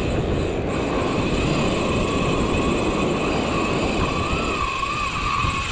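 Wind rumbling on the microphone, over the steady high whine of a hovering camera drone's propellers, which wavers in pitch about four seconds in.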